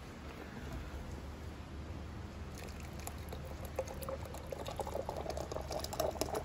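Wet plaster of Paris poured from a plastic cup into a hand-casting mould and pushed out with a wooden stick: thick wet pouring and plopping, with clicks and scrapes of the stick against the plastic cup, getting busier about halfway through.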